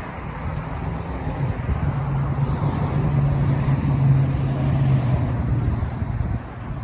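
Motor vehicle running close by, a steady low engine hum over road rumble, strongest in the middle and easing off near the end.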